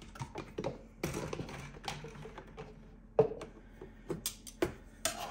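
Irregular light taps and clicks, with a few sharper knocks about three and four and a half seconds in, from hands handling metal kitchen tongs on the plastic lid of a sous vide water tub and the immersion circulator clamped to it.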